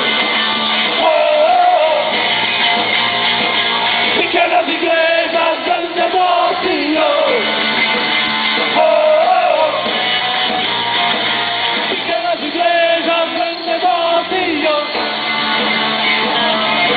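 Live rock band playing loud, with a voice singing and shouting over it, heard through a lo-fi recording of the hall.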